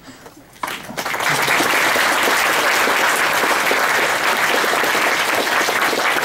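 Audience of a few hundred people applauding, starting about a second in and continuing steadily.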